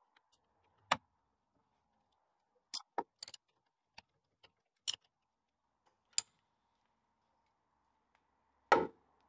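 Sharp metallic clinks and clicks from a steel socket and nuts on the top swivel pin of a Land Rover Series 2 front axle swivel housing as the pin is bolted back down, sounding singly at irregular intervals with a quick cluster about three seconds in. A heavier metal knock comes near the end.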